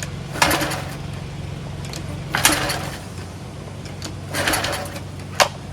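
Gas pressure washer engine's recoil starter pulled three times, about two seconds apart, the engine not firing, then a sharp click near the end. The pull feels wrong to the owner, who later suspects the engine is seizing.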